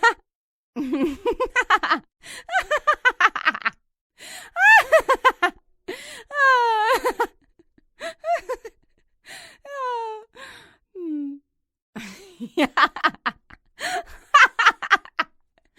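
A string of separate human vocal sound effects: laughs in quick rhythmic pulses, gasps, and pitched sounds that slide up and down, with short pauses between them.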